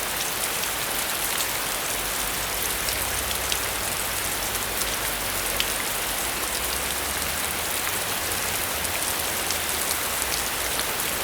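Steady rain sound effect: an even hiss of rainfall with scattered single drops ticking through it.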